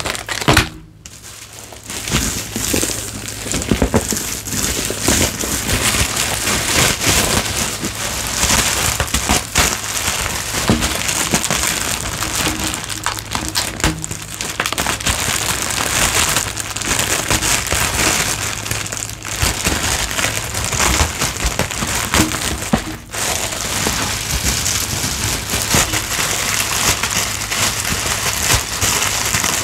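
Packaging being handled and crinkled: continuous crinkly rustling with many small clicks and crackles.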